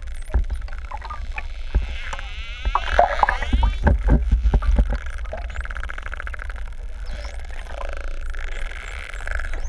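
Pantropical spotted dolphins heard underwater: high whistles gliding up and down, scattered clicks, and a rapid buzzing click train about two to three seconds in, over a low rumble of water against the camera.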